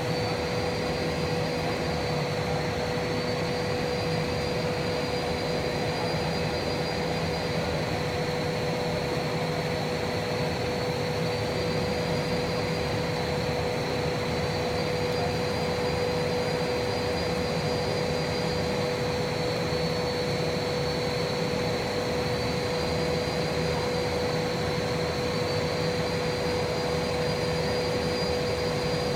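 Air bubble sheet extrusion line running: a steady machine drone with a constant hum and a faint high whine that wavers slightly in pitch every few seconds.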